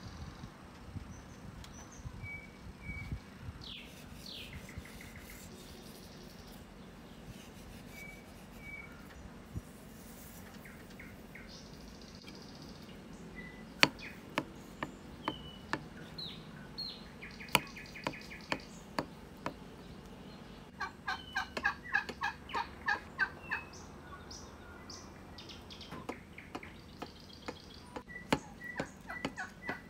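A kitchen knife cutting through a round of fresh soft cheese and knocking sharply on the wooden cutting board, with birds chirping throughout. About two-thirds of the way through, a bird gives a fast rattling call of about six notes a second for some three seconds.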